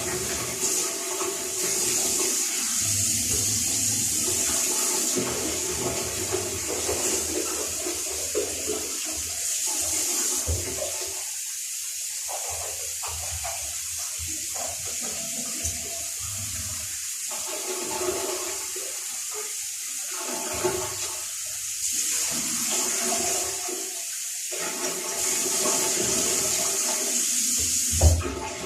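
Water running and splashing, growing and fading in strength as it goes, and stopping shortly before the end.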